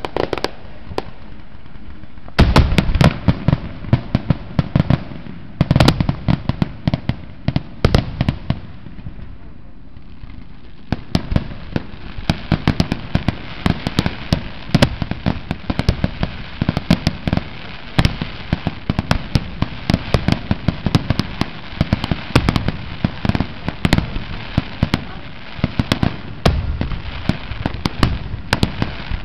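Aerial fireworks display: rapid, overlapping bangs and crackles of shells bursting overhead. Heavy volleys come in the first few seconds and near the end, with a sparser lull about a third of the way in before dense crackling picks up again.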